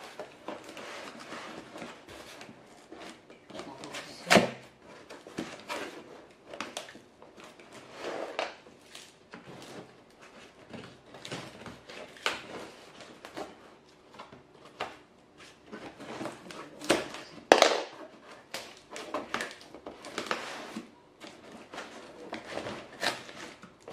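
A cardboard shipping box being handled and shifted on a wooden floor: scattered taps, thumps and scrapes of cardboard, with packing tape being picked at and peeled from a corner. The sharpest knocks come about 4 s in and about 17 s in.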